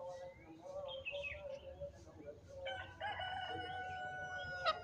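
A junglefowl cock crowing: one drawn-out crow of about two seconds, starting a little past halfway. Faint bird chirps and low calls come before it.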